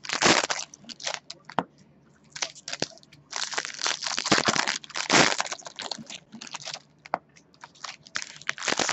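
Foil baseball card pack wrappers being handled and opened, crinkling and crackling in irregular bursts with short pauses between them.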